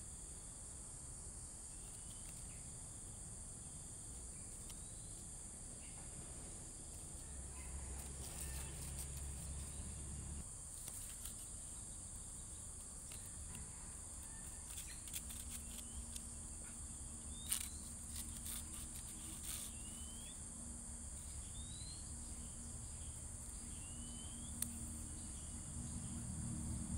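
Outdoor ambience: a steady, high-pitched insect drone, with short rising chirps repeated every second or two and a few sharp clicks about two-thirds of the way in.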